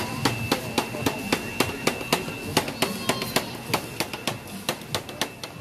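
Music with a fast, steady drum beat, about four beats a second, with a steady high tone sounding through the first half.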